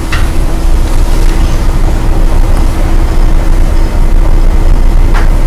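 Steady low rumble of room background noise with a constant faint hum, and two brief clicks, just after the start and near the end.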